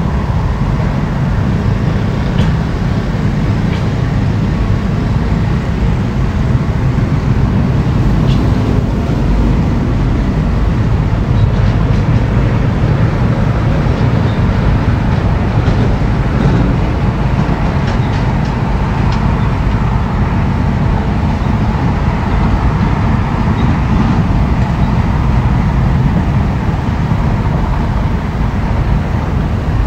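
Heavy diesel engine of an excavator running steadily as it works, a constant low rumble, with a few faint clinks now and then.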